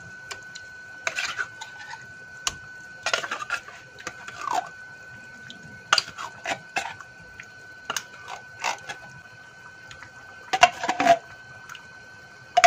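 Tomato sauce pouring and splatting from a carton onto seafood in a frying pan, with scattered clicks and scrapes of a utensil against the pan. A faint steady high tone runs underneath.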